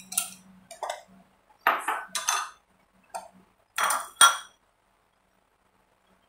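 A run of about eight short, sharp clinks and knocks of small hard objects, the loudest two about four seconds in.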